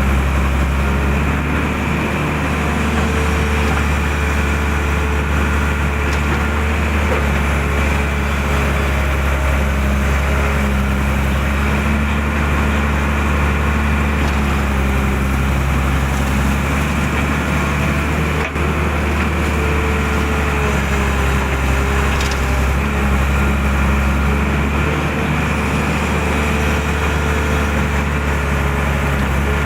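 Excavator's diesel engine running steadily under work, a constant low hum with no pauses.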